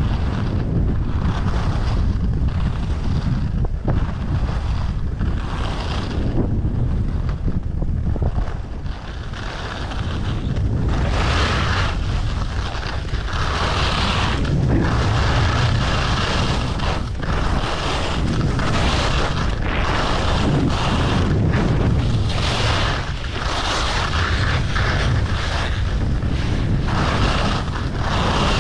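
Steady wind rumble on an action camera's microphone as the skier runs down a groomed piste. Over it, the hiss of skis scraping across the snow swells and fades roughly every one to two seconds, turn by turn.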